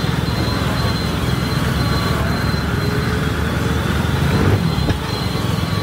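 Water tanker truck moving slowly with its engine running, under a steady hiss of water spraying from its front nozzles onto the road.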